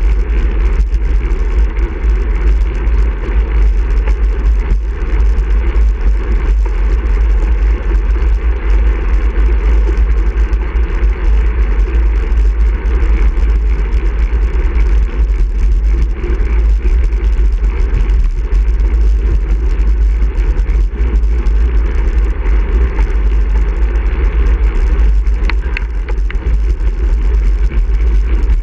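Steady, loud wind buffeting on the microphone of a bike-mounted camera, with the hum of tyres rolling on asphalt as the bike rides along at speed.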